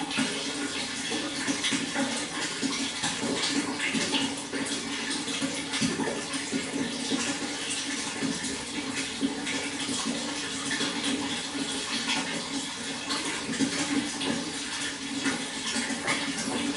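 Water flowing steadily, an even rush full of small splashes with no pauses or changes.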